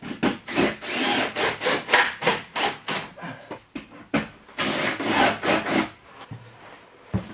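A cut piece of tin roofing sheet scraping and rubbing against the wall in a run of short strokes as it is worked into place for fitting. The strokes come quickly for the first three seconds, with two longer scrapes about five seconds in, and a dull knock near the end.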